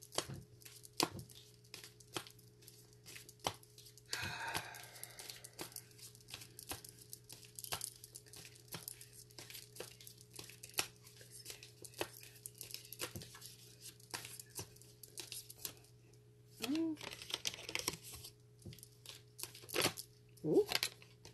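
Oracle cards being shuffled and handled: a string of irregular light clicks and card snaps, with a longer rustle of cards about four seconds in and another near the end.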